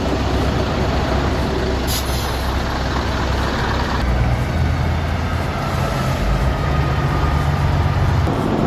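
Logging truck engine running, its note shifting about four seconds in and again near the end, with a short hiss of air about two seconds in.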